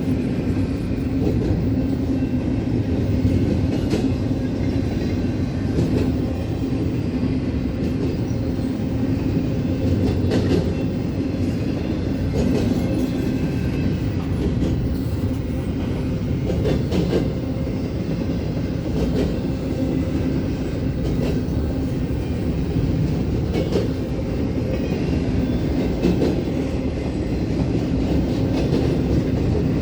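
Freight cars of a long CSX intermodal train rolling steadily past, with a continuous rumble and hum from the wheels and scattered clacks as they cross rail joints.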